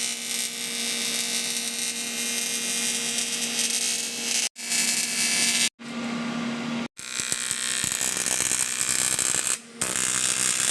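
Welding arc on aluminium: a steady electric buzz under a bright hiss, from tack welding an aluminium ring onto an old aluminium engine part. It cuts off abruptly and restarts several times.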